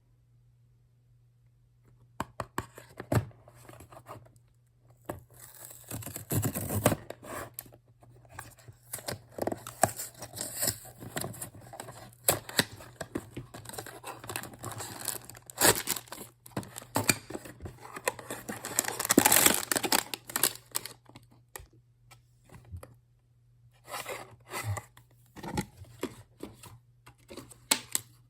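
Blind-box packaging being torn open and handled: irregular tearing and crinkling with short clicks and scrapes. The sounds come in bursts, loudest about two-thirds of the way through.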